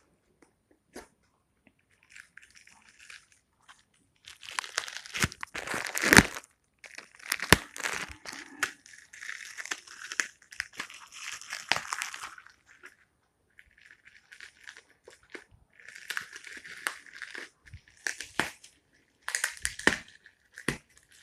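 A wrapper being crinkled and torn off a new smartphone by hand, in irregular rustling bursts with a sharp crackle about six seconds in.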